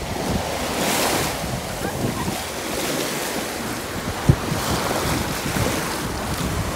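Small sea waves breaking and washing up over wet sand at the water's edge, with wind buffeting the microphone. A single sharp knock a little over four seconds in.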